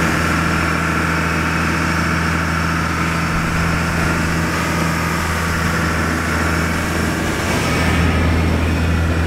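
Fishing boat's engine running with a steady low drone while the boat cruises, an even hiss over it.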